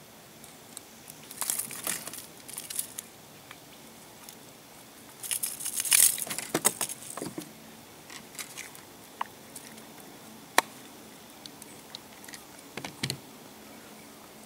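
Rattling, clicking and crinkling from unhooking a snook by hand with a lip-grip tool: two busy spells of rattling, the louder one about five to seven seconds in, then a few single sharp clicks.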